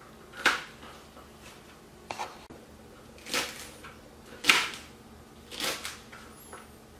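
Kitchen knife chopping nopal cactus paddles into small squares on a plastic cutting board: about five separate knife strikes, roughly one a second, the one about four and a half seconds in the loudest.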